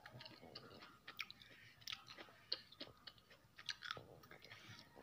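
A person chewing food with the mouth close to the microphone: faint, irregular wet clicks and small crunches, a few each second.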